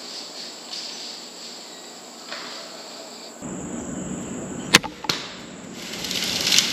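Crossbow fired: a loud, sharp crack of the string release, followed about a third of a second later by a second smack, typical of the bolt striking the deer. A rustling noise then swells near the end.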